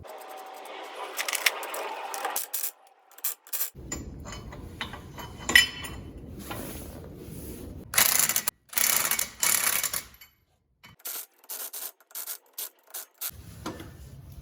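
Hand tools working on suspension bolts: sharp metallic clicks and clinks, scraping, and two loud bursts of ratcheting or rasping about eight and nine seconds in, broken up by abrupt cuts.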